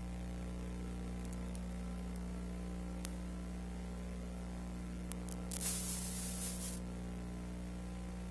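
Steady low electrical hum with a faint hiss, the noise of an otherwise silent soundtrack. A few faint clicks, then a burst of hiss about five and a half seconds in that lasts about a second.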